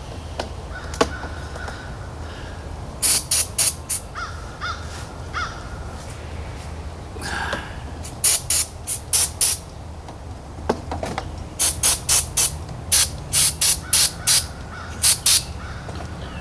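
Aerosol contact cleaner sprayed onto electrical connectors in quick short bursts, in groups of three to five, to clean the corroded contacts of the tractor's electrics.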